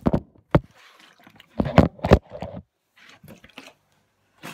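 Plastic water bottle with water inside being flipped and landing on a wooden counter: several sharp thuds with the water sloshing, the loudest a pair about two seconds in.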